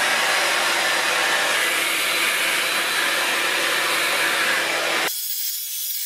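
Panasonic rose gold hair dryer blowing steadily at a strong airflow while hair is styled with a round brush. About five seconds in the full sound cuts out abruptly, leaving only a thin high hiss.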